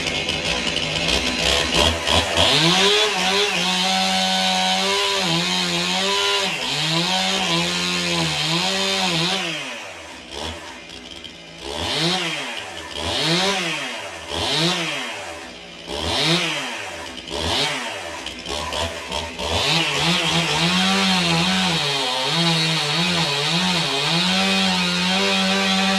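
Stihl MS 291 two-stroke chainsaw running at high revs, its engine pitch wavering up and down. From about ten seconds in it is blipped about seven times, each rev rising and falling, with quieter lulls between. Near the end it settles back to a steadier, wavering high speed.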